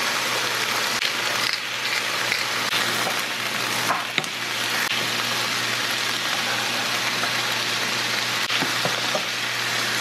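Chicken and vegetables sizzling steadily in a hot nonstick frying pan while being stir-fried with a wooden spatula.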